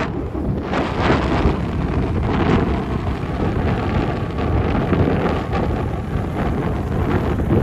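Wind buffeting the microphone from a moving vehicle, over a steady low rumble, in uneven gusts.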